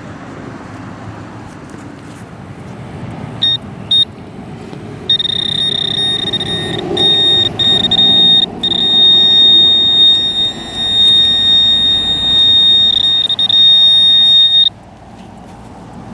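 Metal detector sounding a steady high-pitched tone over a brass target: two short blips, then a continuous tone held for about ten seconds with brief dropouts, cutting off sharply near the end.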